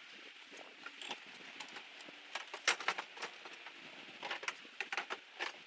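Faint, irregular light clicks and taps, several close together near the middle and again near the end, from tools and materials being handled during cleanup.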